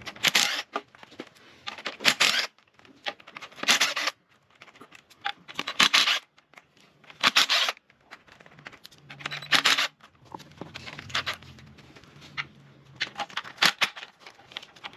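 Hand ratchet wrench clicking in short, rasping strokes about every one and a half to two seconds, as bolts on the engine's valve cover are worked loose.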